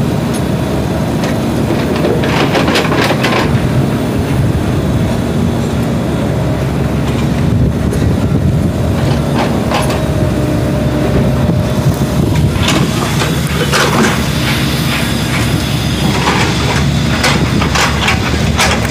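SANY compact crawler excavator's diesel engine running steadily under load. Irregular metallic clanks and scrapes come as it digs and swings, with clusters a few seconds in, around the middle, and through the last third.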